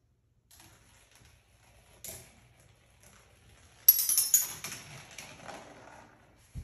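Marble clattering down a plastic marble-run track: a sudden burst of rapid clicks and rattling about four seconds in, fading over about two seconds. A single faint knock comes about two seconds in.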